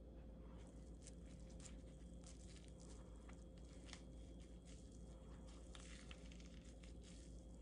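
Faint, irregular crackling and squishing of squeezed pomegranate halves being handled and lifted by hand.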